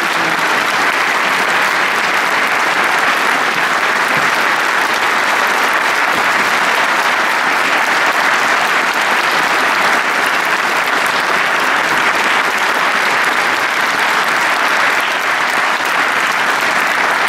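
A hall full of people applauding, steady sustained clapping.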